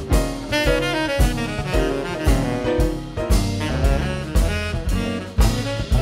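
Saxophone playing a jazz line in quick, moving notes over upright bass and a drum kit keeping a steady beat.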